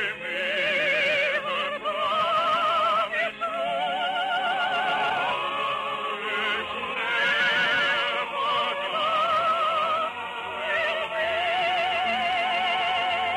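A classically trained voice singing long, held phrases with strong vibrato, over a musical accompaniment.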